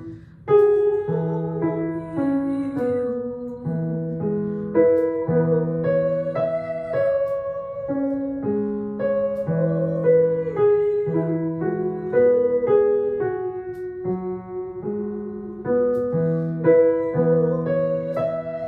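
Piano playing the accompaniment for a vocal warm-up exercise, chords stepping through a repeating pattern, with a voice singing the exercise over it on 'mi'.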